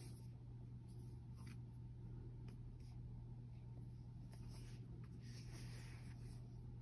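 Faint crinkling and rubbing of plastic shrink wrap on a boxed tarot deck as it is turned over in the hands, a few soft scratchy rustles over a steady low hum.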